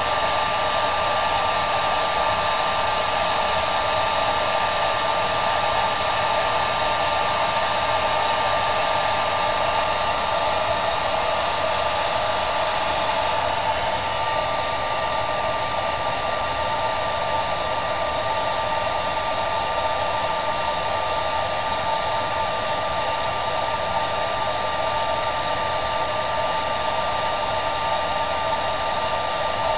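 Handheld hair dryer running steadily, blowing on a latex mask to dry the liquid latex. Its tone shifts slightly about halfway through.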